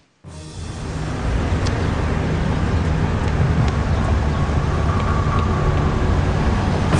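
Steady road traffic noise, cars running along a city street, with a deep engine hum underneath. It starts suddenly just after the beginning and builds over about a second.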